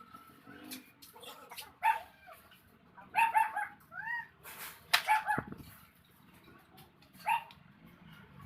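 Short, pitched domestic animal calls, some in quick runs of three or four, with a sharp knock about five seconds in.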